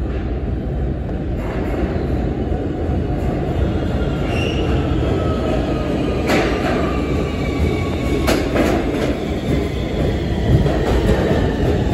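New York City subway F train with Siemens propulsion pulling into an underground station: a loud steady rumble of the cars and wheels on the track, with thin high whining tones from the motors and wheels joining from about a third of the way in. Two sharp clacks stand out in the middle as wheels cross rail joints.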